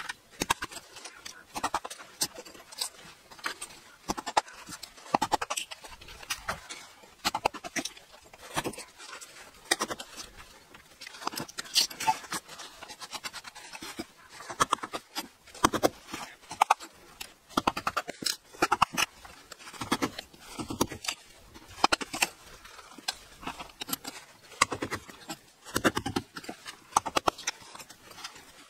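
Wooden mallet striking a steel chisel into a concrete doorstep, breaking up the concrete in irregular knocks about one or two a second.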